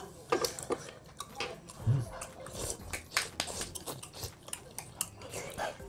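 Chopsticks clicking and tapping against the pan and small plates, with the mouth sounds of eating tteokbokki and glass noodles. A brief hummed voice sound comes about two seconds in.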